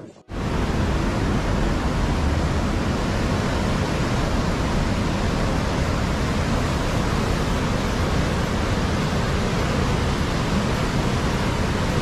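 Steady rushing roar of a muddy river in flood, torrents of brown water pouring fast over its banks and a drop.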